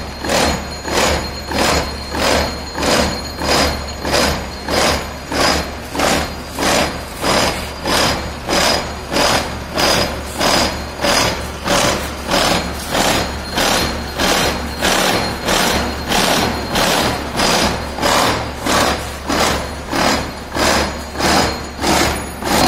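Horizontal milling machine with a disc milling cutter on its arbor cutting a metal block clamped in a machine vise. The cutting noise swells and fades evenly, about once every 0.8 seconds.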